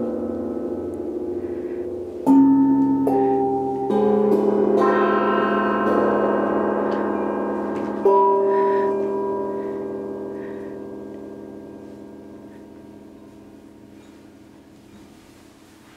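Large gongs struck several times in the first half, their ringing tones overlapping, then left to ring and slowly fade away.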